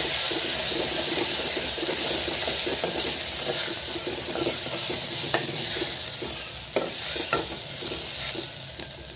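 Freshly ground paste sizzling in hot ghee in a clay pot as it is stirred in, with scattered scrapes and taps of the stirring. The sizzle fades gradually toward the end.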